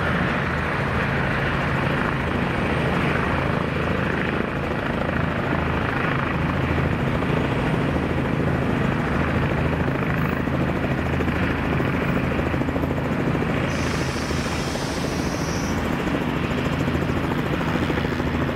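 Airbus EC135 twin-turbine helicopter running at close range as it lands, with a steady low hum and heavy rushing from the main rotor and Fenestron tail rotor. A brighter hiss joins about three-quarters of the way through.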